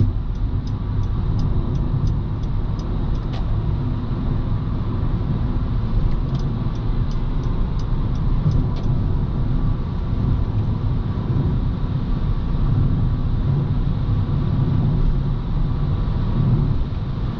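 Honda Civic cruising at highway speed on a light throttle, heard from inside the cabin: a steady low engine and tyre-on-road rumble with no change in pace. Faint light ticks come and go in the first few seconds and again about six to nine seconds in.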